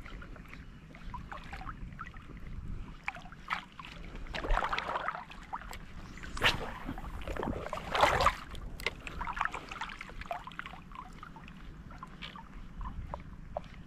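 Water splashing and lapping, with louder splashes about four and a half, six and a half and eight seconds in, among scattered small clicks and knocks.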